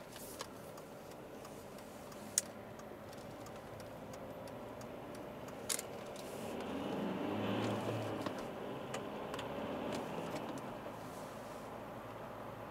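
Inside the cabin of an Alfa Romeo 159 with the 1.9 JTDM four-cylinder turbodiesel, driving along with steady engine and road noise. The engine note grows louder for a few seconds past the middle as the car pulls, then settles. There are two sharp clicks, one early and one just before the swell.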